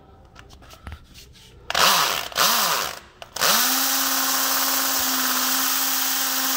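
Electric drill with a triangle-shank multi-purpose bit drilling into a steel plate: two short bursts of the motor spinning up and winding down about two seconds in, then running steadily under load from about three and a half seconds on. A few faint clicks before it starts.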